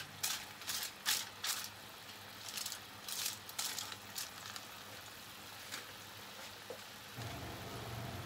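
Aluminium foil crinkling in a string of short crackles during the first four seconds as hands press it down over a pan as a drop lid, over a steady hiss of the cooking liquid boiling on high heat underneath. Background music comes back in about seven seconds in.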